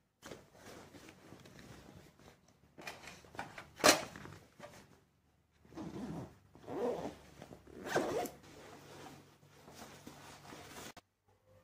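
A fabric school backpack being packed and closed: books slid in, the bag's fabric rustling, and its zipper pulled shut, with a sharp knock about four seconds in. The handling stops abruptly near the end.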